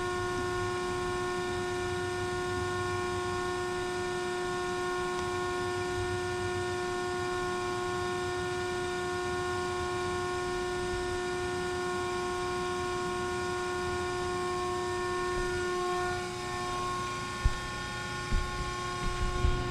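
Hydraulic pump of a 190-ton CNC press brake running with a steady whine of several tones. About 16 s in the sound shifts and a deeper hum rises, followed by a few sharp knocks near the end.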